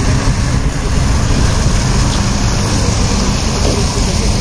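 Steady road traffic on a busy city avenue: a dense, constant rumble of passing cars.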